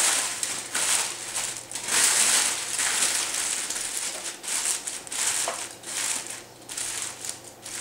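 Aluminium foil crinkling and crackling as hands crumple it and press it tight around a wrapped roast. The rustle comes in irregular surges that swell and fade with each squeeze of the hands.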